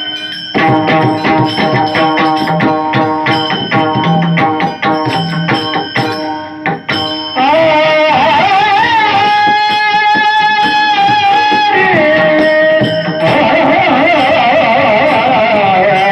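Marathi bhajan music: a pakhawaj drum playing quick strokes under a sustained melody for the first half, then long held, slightly wavering melodic notes from about seven seconds in.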